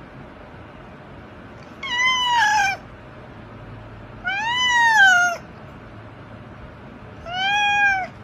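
Black house cat meowing three times, each meow about a second long and rising then falling in pitch.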